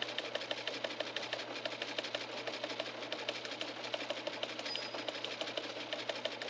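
A small machine clattering steadily, with a rapid, even rhythm of mechanical clicks.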